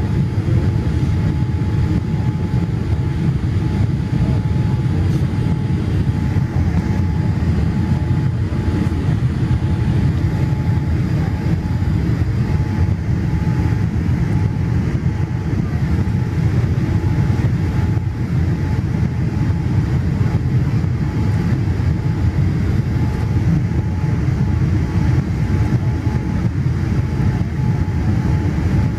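Steady cabin noise of a Boeing 787 Dreamliner airliner heard from a window seat over the wing on approach: a deep, even rumble of engines and airflow with a faint steady whine above it.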